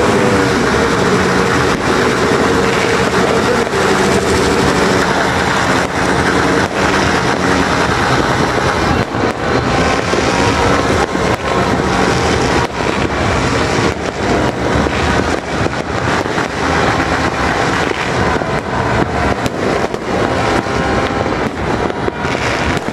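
Fireworks going off in dense succession: a continuous din of many overlapping bangs and crackles.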